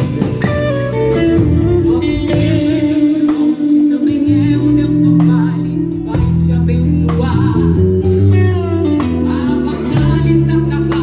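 Live band playing a worship song with a singer holding long notes over guitar, bass and drums.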